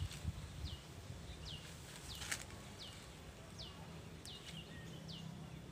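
A small bird repeating a short high chirp that falls in pitch, about three calls every two seconds at an even pace. Low rustling and knocks from handling come in the first second, with another brief rustle near the middle.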